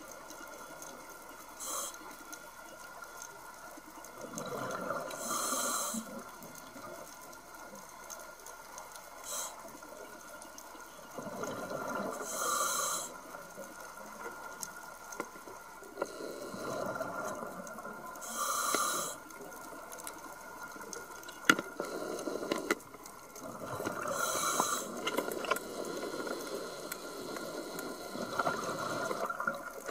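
Scuba diver breathing through a regulator underwater: slow, even breaths with a burst of bubbles on each cycle, four times about six seconds apart. A single sharp click about two-thirds of the way through.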